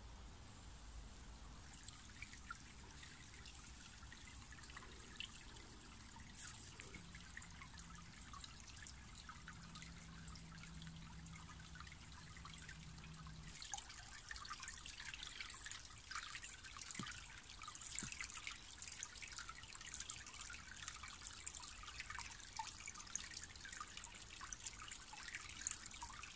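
Shallow stream trickling and babbling over stones and leaves, faint at first and growing livelier and closer about halfway through.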